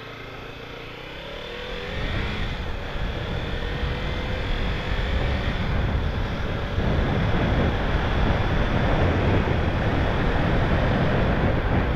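Kawasaki Ninja 300's parallel-twin engine pulling the bike up to speed, with wind rushing over the helmet microphone; it builds about two seconds in with a rising engine pitch and gets louder again near seven seconds.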